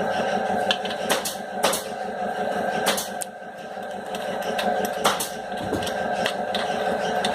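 Metal clinks and taps of a wrench working the nuts and bolts of a sewing machine motor's mounting, a few sharp knocks spread across several seconds over a steady background hum.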